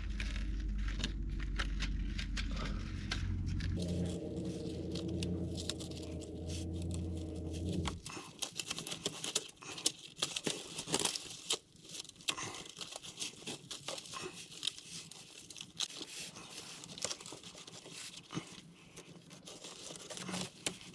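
A steady low hum that cuts off suddenly about eight seconds in, then irregular crinkling and tearing as exhaust repair bandage wrap is handled and wound on.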